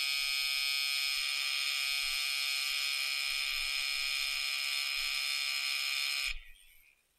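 Small electromagnetic watch demagnetizer buzzing steadily, held against a quartz watch to try to jolt its stopped movement into running. The buzz cuts off suddenly about six seconds in.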